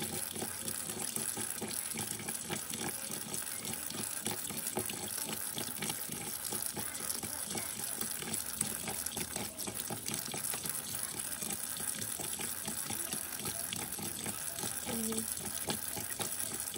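Tap water running into a stainless steel sink while a knife scrapes the scales off a pinfish, with a steady rush of water and many small sharp scraping clicks throughout.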